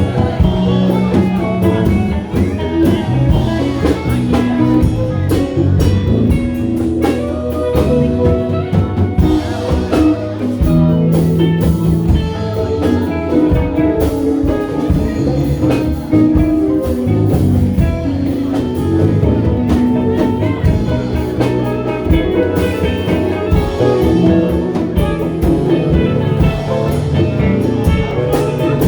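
Live band playing an instrumental passage, with guitar and drum kit over a steady beat.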